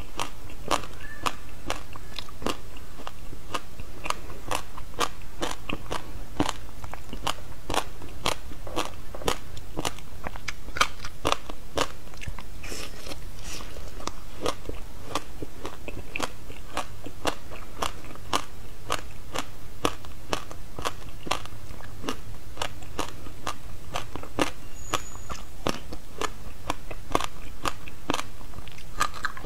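Frozen passion fruit ice, a slab of ice studded with passion fruit seeds, bitten and chewed close to a clip-on microphone: a steady run of sharp crunches and cracks, about two or three a second.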